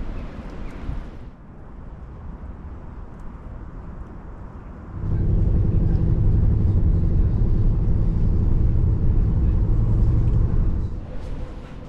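A vehicle's engine drone, low and steady, starting suddenly about five seconds in and fading out about six seconds later, after quieter outdoor background noise.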